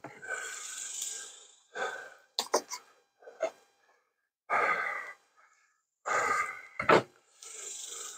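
Heavy breathing close to the microphone: several long breaths and sighs. A few sharp clicks and knocks of wooden hive parts being handled come between them, the loudest a thump about seven seconds in.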